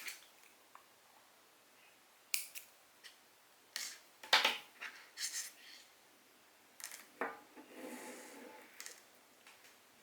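Hands handling monofilament fishing line and hooks while tying a multi-hook rig: a series of short clicks and rustles, one every second or two, with a longer rustle near the end.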